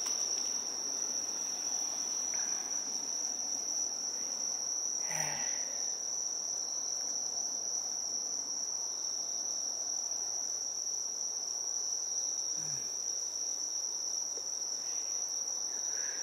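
Night insects singing outdoors, a steady, unbroken high-pitched chirring trill.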